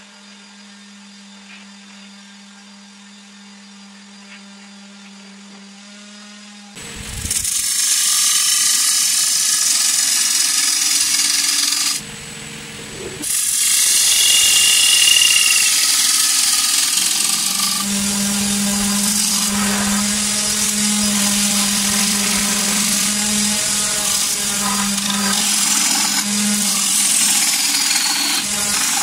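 Wood lathe with a low steady hum for the first several seconds. A gouge then bites into the spinning wooden bowl blank: a loud, continuous scraping hiss of the tool cutting wood, which dips briefly about twelve seconds in.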